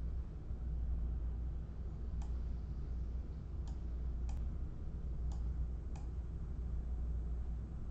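A steady low hum, with five short, sharp clicks scattered between about two and six seconds in.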